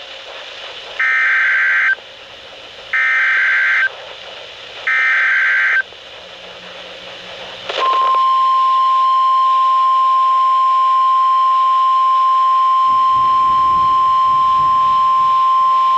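Emergency Alert System SAME header: three short digital data bursts about a second apart. About two seconds later comes a single steady NOAA Weather Radio warning alarm tone of about 1050 Hz that holds for around nine seconds. Together they mark the start of a new weather warning broadcast.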